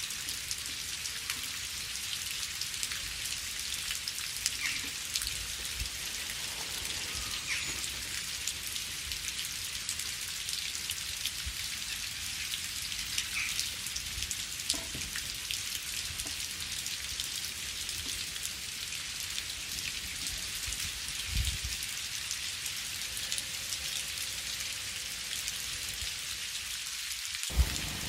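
Steady rain falling: an even hiss thick with fine pattering drops and now and then a heavier drip. Near the end the sound cuts out for an instant with a click, then resumes.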